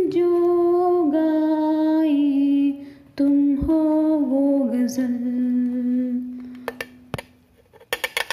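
A woman humming a Hindi film song melody without words, unaccompanied, in long held notes that slide between pitches. Near the end the humming stops and a few sharp clicks follow, then a quick run of knocks.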